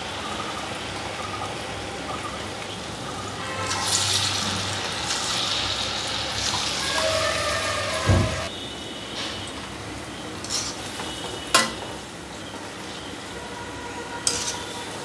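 Fritter batter sizzling and bubbling as it deep-fries in hot oil in an iron kadai. There is a single dull thump about eight seconds in and a couple of sharp clicks near the end.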